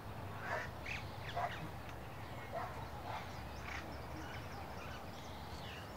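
Faint bird calls: short chirps every half second to a second, over a steady low background hum.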